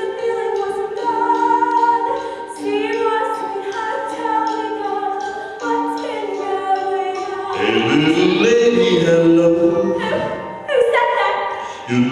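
Singing over music: voices holding long notes, with a lower voice sliding up in pitch about two-thirds of the way through.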